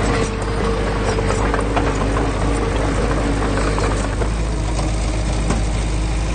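Heavy-equipment diesel engine running steadily, a low rumble with a held hum, with a few faint clicks and knocks over it.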